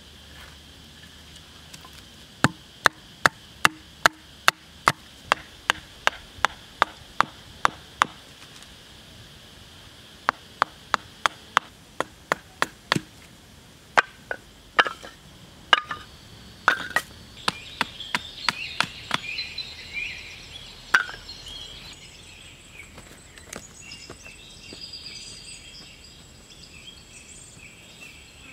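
Fresh wood being chopped and split with a blade: a run of sharp, evenly spaced knocks, two to three a second, starting about two seconds in, then more irregular strikes. After about twenty seconds the chopping stops, leaving birdsong and insects.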